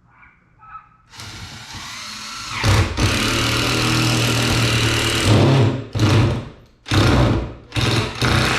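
Power drill driving 3-inch grabber screws up into a ceiling stud: one long run of a few seconds, then four short bursts near the end as the screw is seated.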